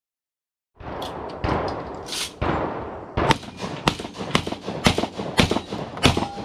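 Shotgun fired in a rapid string of shots, about two a second, starting about a second in.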